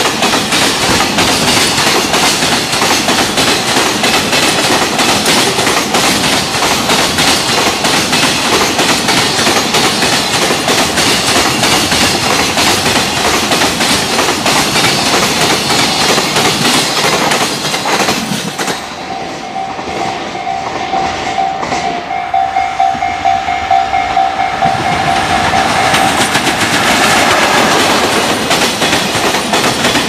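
Long JR Freight container train rolling past, its wagon wheels pounding over rail joints in a loud, steady clickety-clack. About 18 seconds in, the last wagons pass and it quiets, leaving a steady ringing tone. From about 26 seconds a second container freight train comes through with the same heavy joint clatter.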